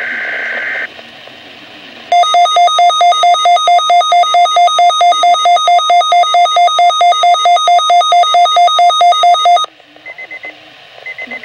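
A burst of shrill digital alert-header data from the weather broadcast ends about a second in. Then a Midland WR-120 weather radio's alarm sounds, set off by the Required Monthly Test: loud electronic beeping at about five beeps a second for some seven seconds, which cuts off suddenly. Near the end come a few short, faint data chirps.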